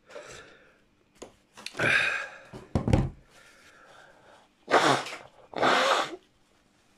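A man blowing his nose hard twice into tissue paper, two forceful hissing blows about half a second each, his nose running from the heat of a super-hot chilli pepper. A heavy breath and a short thump come a couple of seconds before.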